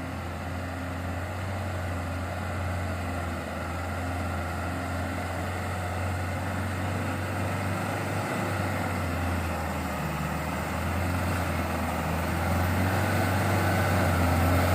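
Diesel engine of a Hino Dutro truck labouring up a steep climb: a steady low drone that grows gradually louder as the truck approaches.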